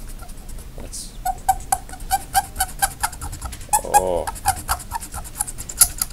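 Friction-erasable pen's rubber end rubbed fast back and forth on paper to erase ink, squeaking on each stroke at about five strokes a second. A short hum from a voice about four seconds in.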